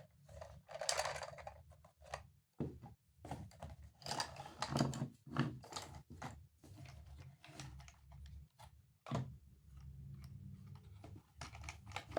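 Plastic toy train parts being handled: irregular light clicks and rattles over a low steady hum.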